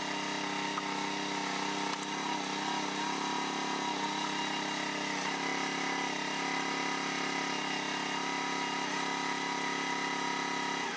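Engine of a work machine running steadily at an even speed.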